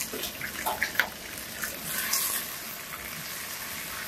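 Onions frying and sizzling in hot oil in a large aluminium pot, with a steel ladle clicking and scraping against the pot. The sizzle flares up about two seconds in as a wet ingredient is spooned into the oil, sending up a cloud of steam.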